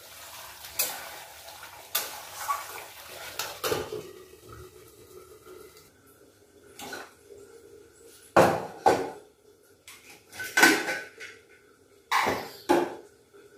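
Metal cookware clanking: pot lids and an aluminium pressure cooker being picked up and set down on a stove and stone counter. A series of sharp clanks, each with a short ring, loudest in the second half.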